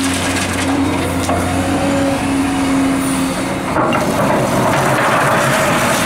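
Liebherr R944 crawler excavator's diesel engine and hydraulics working steadily as the machine swings back and lowers its bucket. The steady hum changes tone a little past halfway, as the hydraulic load shifts.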